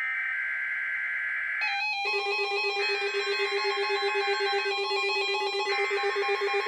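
NOAA Weather Radio SAME header of a Required Weekly Test: a raspy two-tone data burst repeated three times, about a second apart. Each burst lasts just under two seconds. From about a second and a half in, a synthesizer tune with a steady droning note plays along.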